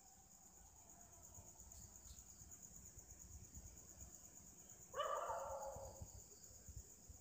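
Faint animal call: one drawn-out cry that starts suddenly about five seconds in and fades over about a second. A steady high-pitched whine runs underneath.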